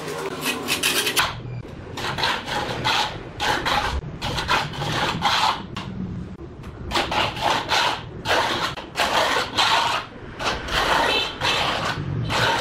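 Steel trowel scraping and smoothing wet cement mortar along the top of a brick wall, in a series of short rasping strokes with brief pauses between them.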